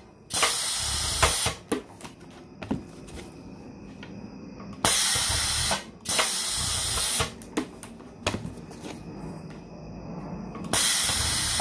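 Edward Segal Model 3P6 grommet press punching holes in Coroplast signs, three strokes in quick succession. Each stroke is a pair of loud hissing blasts about a second long, with light clicks and knocks in between.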